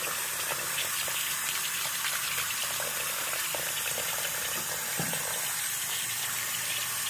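Tap water running in a steady stream into a basin, splashing onto a shirt soaking in the water.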